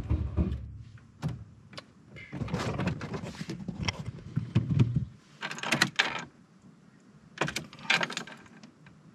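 Volkswagen Golf II's starter motor cranking the engine in two attempts, one fading out about a second in and another from about two to five seconds, without the engine catching, then a few sharp clicks and rattles. The engine gets no spark with the freshly wired rev limiter connected, which the owner puts down to the coil being grounded.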